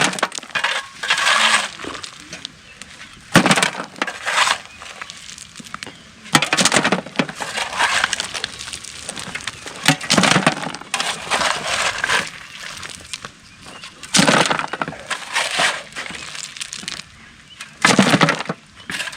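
A steel shovel scraping and scooping into loose sand and stone, a gritty crunch roughly every two to three seconds, stroke after stroke.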